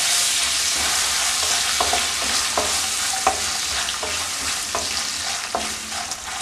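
Hot oil tempering of mustard seeds, dals, nuts and chillies sizzling in a nonstick wok as lemon juice is stirred in with a spatula, the spatula knocking against the pan about once a second. The stove has been switched off, and the sizzle slowly dies down.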